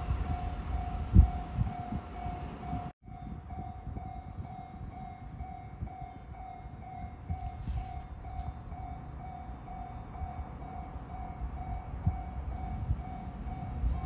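Japanese level-crossing warning bell ringing, an electronic tone pulsing at an even pace to warn of an approaching train, over a low rumble. The sound cuts out for a moment about three seconds in.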